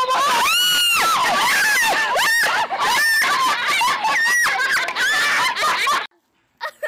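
A boy screaming in fright, a run of loud, high-pitched shrieks, as a lizard jumps onto him. The screaming stops abruptly about six seconds in.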